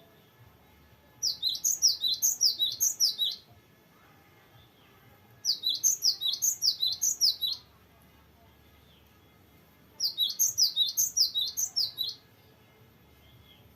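Cinereous tit (gelatik batu) singing in three bursts of about two seconds each, every burst a fast run of about ten repeated downward-sliding whistled notes, with pauses of about two seconds between them.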